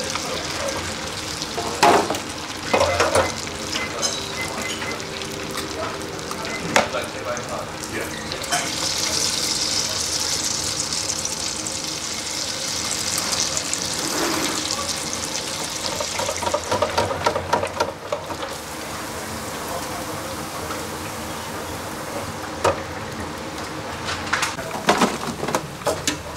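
Falafel balls deep-frying in an electric deep fryer: the oil sizzles steadily, growing louder for several seconds about a third of the way in. Occasional sharp clicks and knocks sound over the frying.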